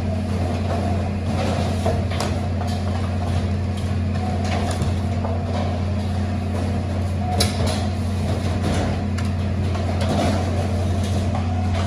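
A steady low mechanical drone, like a running engine, with a few short clicks and knocks over it, the sharpest about seven seconds in.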